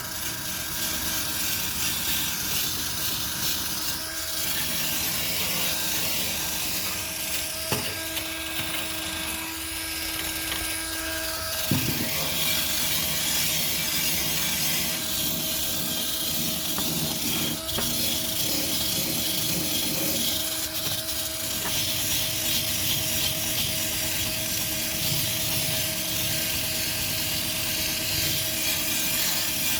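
Electric drill spinning a brush attachment, scrubbing dried bird droppings off a street light fixture: a steady motor whine under the scraping of the brush, with short knocks about eight and twelve seconds in.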